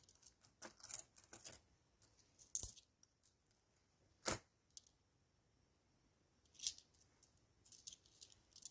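Euro coins clinking faintly as they are picked up and shifted about on a plastic binder sleeve, in scattered separate clicks with quiet gaps; the sharpest click comes about four seconds in.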